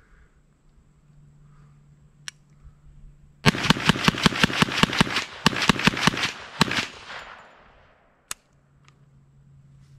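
TNW Aero Survival Rifle, a 10mm semi-automatic carbine, firing a rapid string of about eighteen shots in some three seconds, with echo trailing off after the last. The rifle cycles every round without a jam. A single sharp click follows a couple of seconds later.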